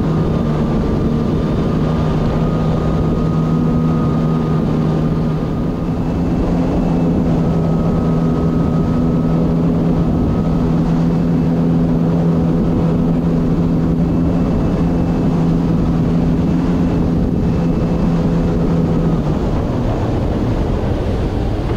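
Kawasaki Ultra 310LX jet ski's supercharged four-cylinder engine running steadily at speed, a constant drone over the rush of wind and water. About nineteen seconds in, the steady engine note changes as the craft speeds up.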